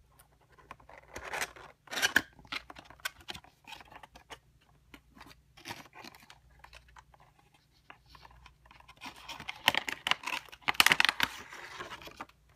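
A cardboard toy box and its packaging being opened by hand: scattered clicks, scrapes and tearing, with a longer, louder stretch of scraping and tearing near the end.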